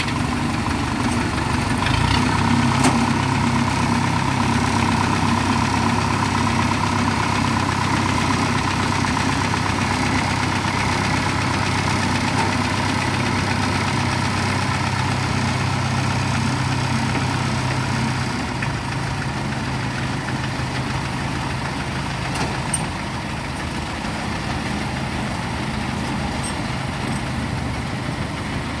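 Engine of a small tracked crawler carrier running steadily as the machine drives along. The engine note grows louder about two seconds in and eases back around eighteen seconds.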